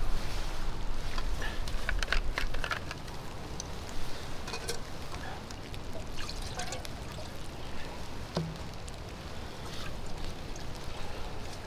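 Liquid poured from a flask into a camp bowl, among scattered clinks and rustles of cookware being handled.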